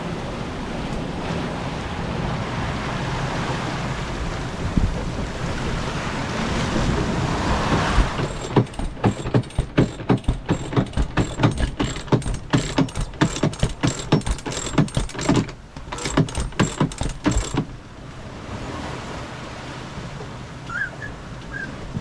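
Wind and waves rushing past a sailing yacht in a squall, growing louder. Then a cockpit sheet winch is cranked with a handle: its ratchet clicks in a steady rhythm, about three clicks a second, for around ten seconds, then stops, leaving a softer rush of wind and sea.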